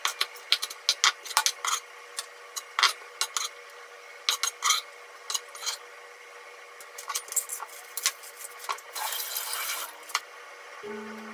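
Kitchen knife mincing on a wooden cutting board: quick, uneven taps of the blade on the wood, thinning out to scattered knocks and scrapes as the chopped pieces are gathered up. Near the end comes a short crinkle of plastic wrap, and music starts just before the close.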